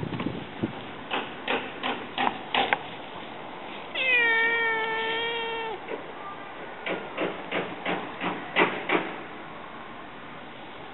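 A black-and-white cat gives one long, drawn-out meow about four seconds in, holding a steady pitch for nearly two seconds. Before and after it come runs of short crunching footsteps on dry grass.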